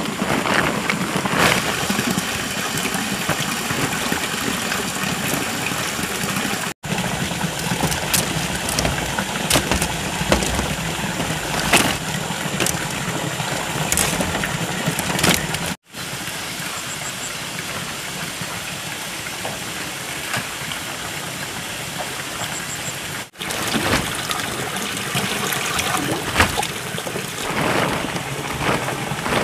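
Plastic tarpaulin rustling and crackling as it is pulled and spread out by hand, a continuous rough noise with many small sharp crinkles.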